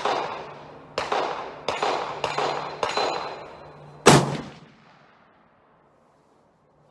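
Gunfire: five shots about half a second apart, each with an echoing tail, then about four seconds in a single louder, sharper blast from a 300 Winchester Magnum bolt-action rifle, a Ruger American Go Wild fitted with a muzzle brake.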